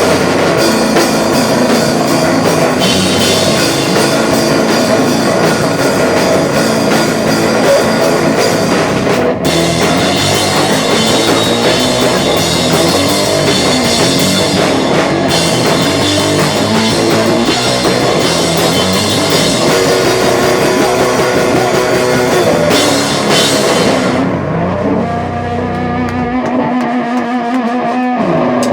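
A rock band playing live: electric guitar and drum kit at full volume. About 24 seconds in, the drums and cymbals drop out and the guitar rings on alone with a sliding note.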